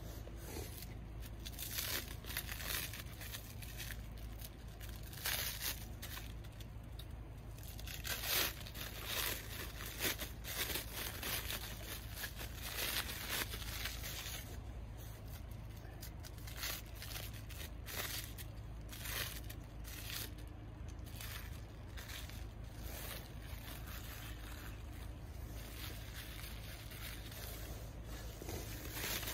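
Plastic cling film crinkling and tearing as a wrapped piece of food is unwrapped by hand, in irregular bursts of sharp crackly rustles that thin out after about two-thirds of the way through.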